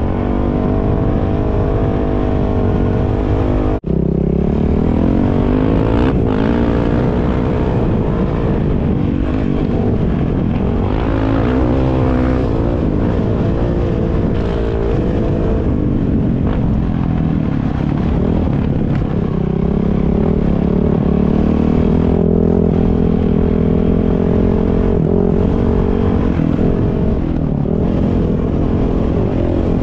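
Dirt bike engine heard from the rider's helmet, running under way with the throttle opening and closing so the pitch rises and falls again and again. The sound cuts out for an instant about four seconds in.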